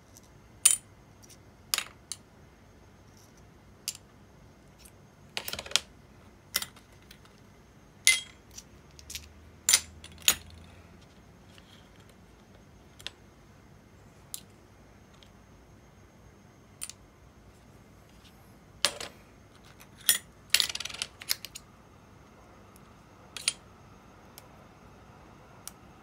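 Small metal parts of an Abu Garcia Ambassadeur 2500C baitcasting reel (gears, washers, side-plate pieces) clinking against each other and into stainless-steel parts cups as they are handled and set down. Scattered sharp clicks and clinks, with a short rattle about twenty seconds in.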